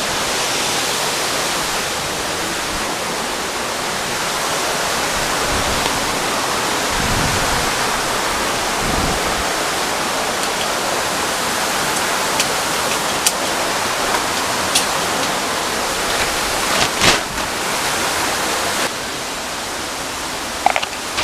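Steady rush of the Agura waterfall and its river close by, with a few sharp clicks and a thump in the second half.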